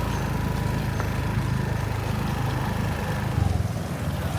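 Motorbike engine running at low speed, a steady low engine note.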